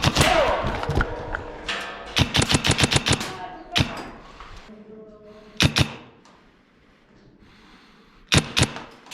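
Airsoft guns firing: a rapid full-auto burst of about ten sharp shots in a second, about two seconds in, with single shots and short pairs before and after.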